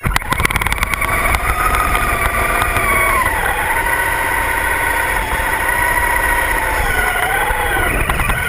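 Radio-controlled car motors running hard under load while pulling against each other, a loud pitched whine that dips about three seconds in and again near the end before rising.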